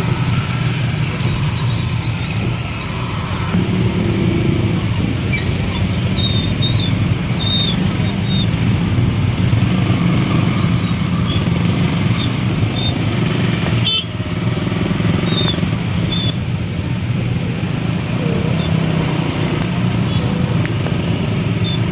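Steady motor-vehicle running noise, a low hum under the even hiss of heavy rain and wind, with a sharp knock about fourteen seconds in.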